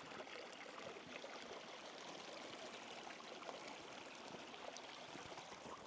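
A tiny creek trickling steadily over rock at the lip of a waterfall that is almost dry, only a thin flow of water running.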